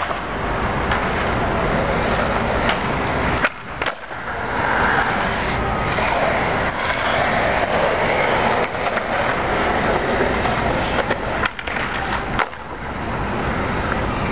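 Skateboard wheels rolling on smooth pavement, with several sharp clacks of the board hitting the ground as tricks are popped and landed.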